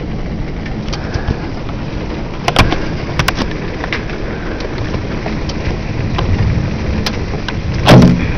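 Heavy thunderstorm rain and wind making a steady rushing roar, with a few sharp cracks about two and a half and three seconds in and a brief louder burst near the end.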